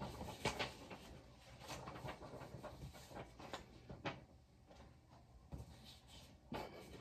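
Faint rustling and handling of sheets of paper being sorted, with a few soft scattered taps and shuffles.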